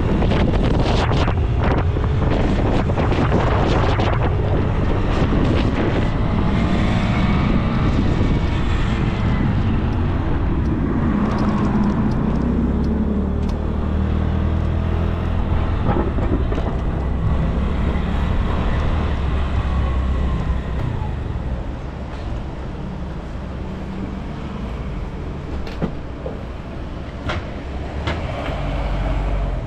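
City street traffic, with cars and other vehicles running past and wind buffeting the microphone. It is louder for the first two-thirds, then eases off.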